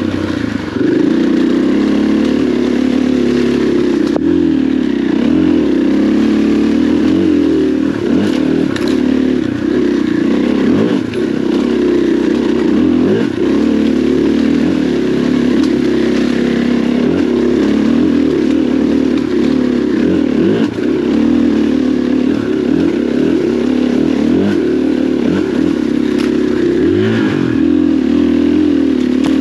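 KTM 500 EXC dirt bike's single-cylinder four-stroke engine running under load on a muddy trail, its pitch rising and falling constantly as the throttle is worked.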